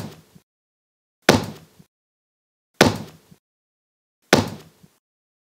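Heavy slam-and-thud sound effects of on-screen title text hitting into place, one about every one and a half seconds. Each is a sudden hit that dies away within half a second. Three fall in full, after the tail of one that landed just before.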